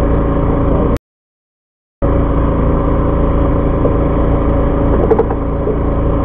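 Fishing boat's engine running steadily with an even hum. The sound drops out completely for about a second, about a second in, then resumes unchanged.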